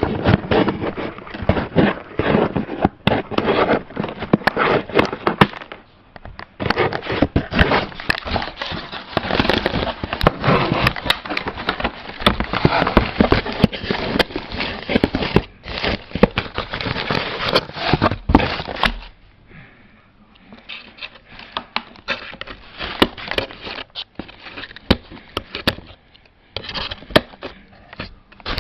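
Crinkling, crackling and scraping of a toy box's packaging being handled and pulled apart to free a Cabbage Patch Kids doll, with a short lull about two-thirds of the way through.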